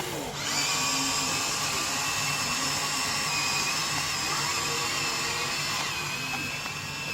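Small electric motors of a radio-controlled toy excavator whining steadily at a high pitch, with a slight change near the end.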